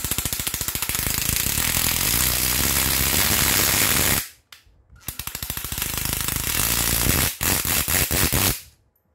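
Brushed-motor cordless impact driver, rated 4000 blows a minute, hammering in rapid, dense blows. It runs in three bursts, about four, two and one second long, and the last one trails off into a few separate blows. The hammer action runs smoothly.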